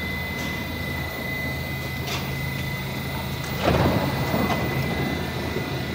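Subway train standing at the platform, humming steadily with a thin high whine; about three and a half seconds in, the car's sliding doors open with a loud rush.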